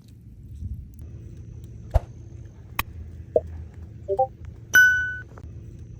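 Several light knocks and clicks, the loudest near the end ringing briefly like struck metal, over a low steady rumble.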